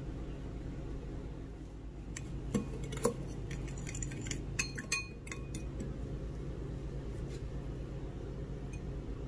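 Kitchenware clinking: a cluster of light taps and clinks with short ringing, about two to five seconds in, over a steady low hum.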